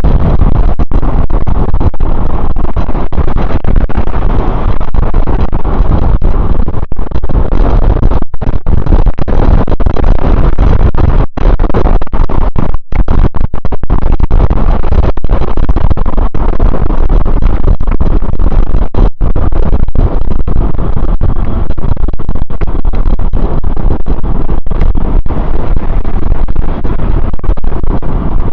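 Heavy wind buffeting on the microphone of a camera riding on a fast-moving e-bike: a loud, steady rumble with brief dropouts now and then.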